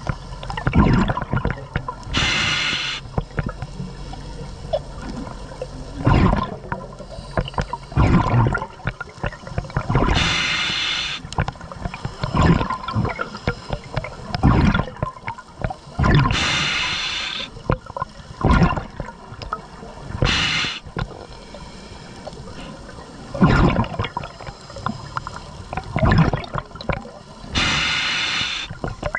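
Scuba diver breathing through a regulator underwater. Exhaled bubbles gush out five times, several seconds apart, with quieter breathing and bubbling sounds between.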